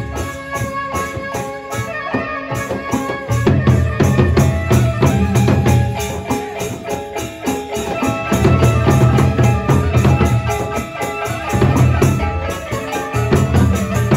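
Sasak gendang beleq ensemble playing: large barrel drums beaten in fast, heavy strokes over a rapid, steady clash of cymbals and the ringing tones of small gongs. The deep drumming swells and eases in waves every few seconds.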